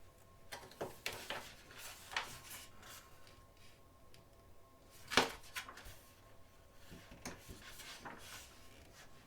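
Magazine pages being turned and handled: scattered soft rustles and taps, with one sharper slap about five seconds in.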